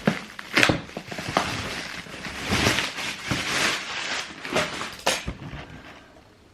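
Cardboard shoebox being handled and opened: rustling and scraping with several sharp knocks, stopping about five seconds in.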